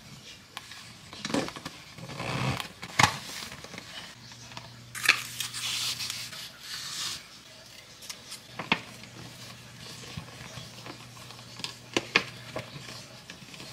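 Ribbon and a cookie gift box being handled while the box is wrapped: scattered rustling, rubbing and light taps, with a longer rustle about five seconds in.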